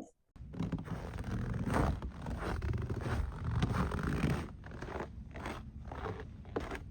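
Footsteps of a hiker walking on a dune trail, a step roughly every half second, over a steady low rumble.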